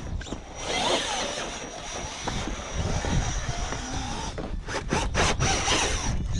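RC rock crawler running on its electric motor and geartrain with a steady whine, crawling over rock with scraping and intermittent clicks and knocks.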